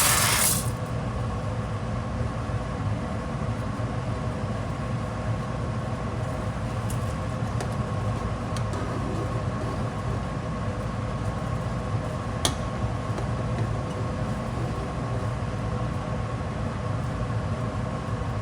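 Pot of Hamburger Helper coming to the boil on a stovetop, with a few faint pops of bubbles, under a steady electrical hum. A short loud hiss cuts off just after the start.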